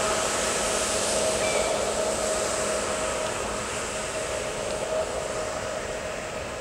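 Electric jet surfboard's motor and jet drive whining steadily over the hiss of its spray, fading slowly as the board runs away.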